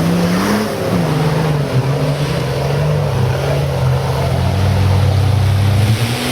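Nissan Patrol Y61 off-road engine running under varying throttle: its note dips and climbs several times, with a steady rushing noise underneath.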